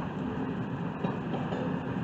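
Freight train of double-stacked container cars rolling steadily past, with a continuous rumble of wheels on rail.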